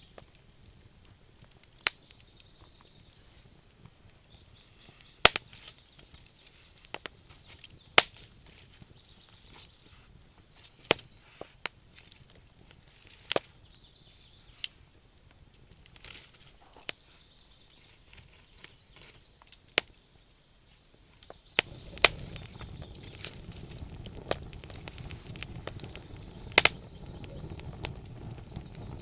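Wood fire crackling in a fireplace: sharp, irregular pops and snaps over a faint hiss. About 21 seconds in, a steady low rushing noise comes in under the pops and stays.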